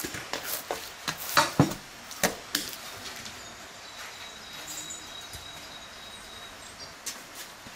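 A few sharp knocks and scrapes in the first few seconds as hands work bread dough in a metal bowl and scoop flour from a glazed clay jar, then softer handling while flour is sprinkled over the dough. A faint steady high tone sounds in the background in the middle.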